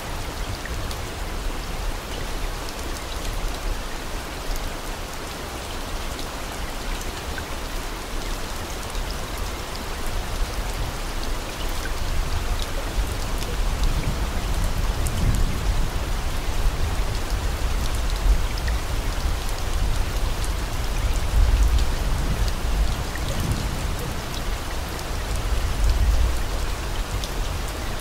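Steady rain: an even hiss with scattered fine drop ticks and a low rumble that swells a few times, typical of the rain track laid over subliminal audio.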